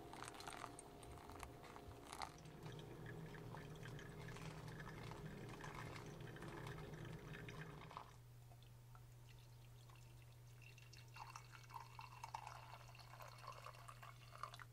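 Faint trickle of hot water poured from a kettle onto coffee grounds in a paper pour-over filter, stopping about eight seconds in. Near the end, a few small drips and ticks as the brewed coffee is poured into a mug.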